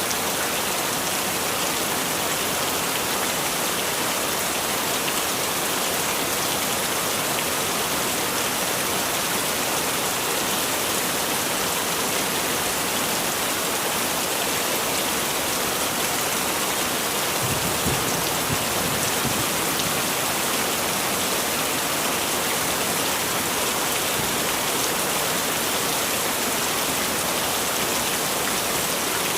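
Heavy rain falling in a steady, even hiss, with a brief low rumble about two-thirds of the way through.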